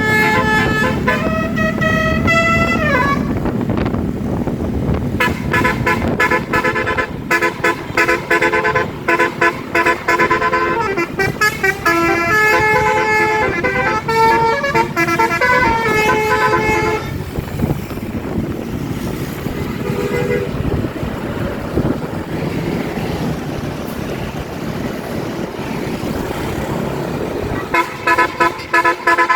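Bus telolet basuri musical horn playing tunes: several horn tones stepping up and down in a melody. First a short tune ending in a downward slide, then a long tune of about twelve seconds, a brief blast around the twenty-second mark, and a new tune starting near the end, with steady traffic noise in the gaps.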